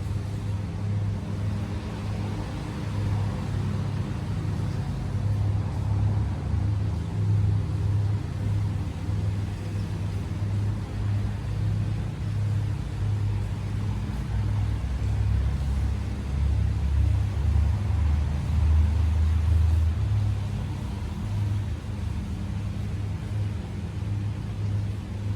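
Steady low rumble and hum with an uneven, pulsing low end, swelling louder for a few seconds past the middle.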